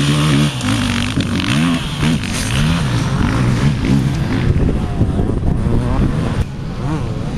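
Enduro dirt bike engine revving hard as the bike races across dirt, its pitch repeatedly rising and dropping with the throttle and gear changes. The engine gets a little quieter about six and a half seconds in.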